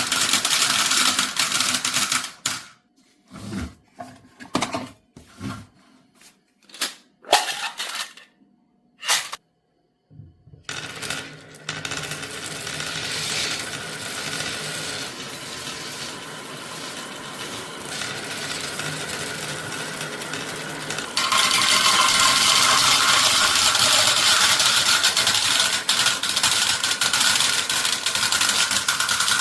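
Glass marbles rolling and clattering down a HABA marble run. In the first third come separate clicks and knocks with short pauses as marbles drop and strike the pieces. After that comes a steady rolling rattle that gets louder about two-thirds of the way through.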